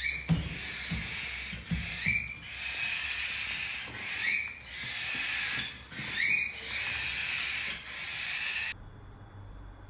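A pet bird's steady raspy hissing, broken by a short rising squawk about every two seconds, four in all; it stops suddenly near the end.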